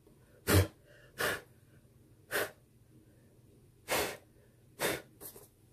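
A person blowing short puffs of breath across a foam display board to clear off dust and bits of paper: about six quick puffs at uneven intervals, the last one weaker.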